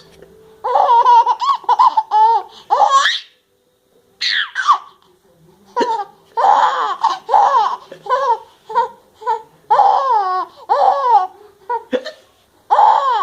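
A young child laughing hard in high-pitched, squealing bursts of rapid 'ha' sounds, with two short pauses for breath.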